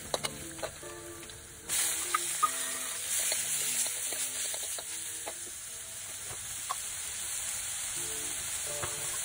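Ginger and garlic frying in oil in a steel wok, with a metal ladle clicking and scraping against the pan. About two seconds in, the sizzle jumps louder as chopped tomatoes hit the hot oil, and it keeps frying steadily while being stirred.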